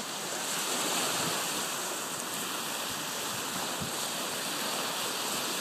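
Small waves breaking and washing up onto a beach in a steady surf wash.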